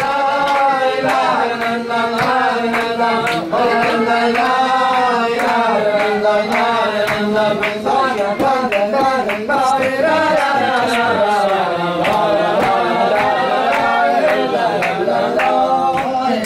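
Several men's voices singing a slow melody together, with sharp clap-like beats keeping time through it.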